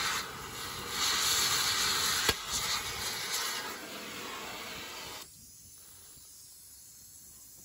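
Oxy-fuel cutting torch with a gouging tip hissing steadily as its jet gouges a deep groove into a steel mantle liner, with one sharp crack about two seconds in. The hiss drops abruptly to a faint level about five seconds in.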